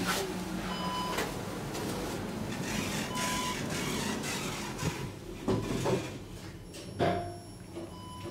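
KONE EcoDisc elevator running: doors sliding and the car moving with a steady mechanical whir, broken by several knocks, a sharp one at the start and a cluster near the end. Faint short beeps sound now and then.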